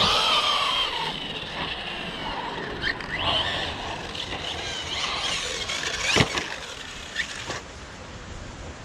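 Electric RC car being driven on concrete, with squealing that glides up and down in pitch. A sharp knock comes about six seconds in, followed by a couple of lighter knocks.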